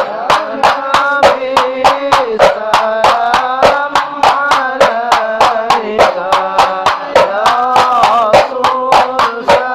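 Voices singing a devotional chant over a fast, steady beat of hand-struck rebana frame drums, about four or five strikes a second.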